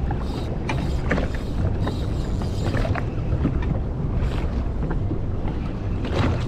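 Wind buffeting the microphone over choppy water slapping against a Sea-Doo FishPro Trophy jet ski's hull, with irregular splashy slaps.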